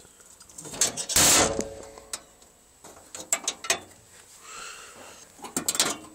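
Clunks, clicks and a scrape of metal parts being handled on a skid steer's engine compartment, with no engine running. The loudest is a short scraping clunk about a second in, followed by scattered clicks and a small cluster of knocks near the end.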